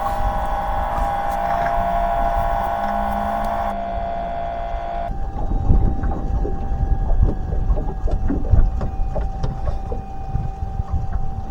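Boat on the water: a steady motor whine for the first few seconds that stops suddenly about five seconds in, then a low rumble with irregular knocks and bumps from the boat and water.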